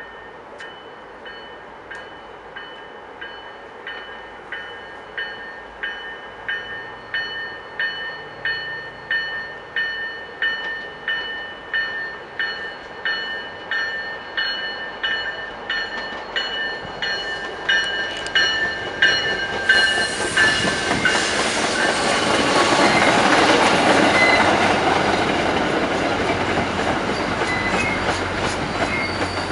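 MBTA commuter train arriving, its locomotive bell ringing at about one and a half strokes a second and growing louder as it approaches. About two-thirds of the way in, the train's passing noise takes over loudly.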